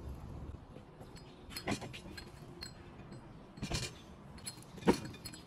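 Three or four short metallic clinks and knocks as chrome tube table legs and their fittings are handled and fitted to the table top, the one about five seconds in the loudest.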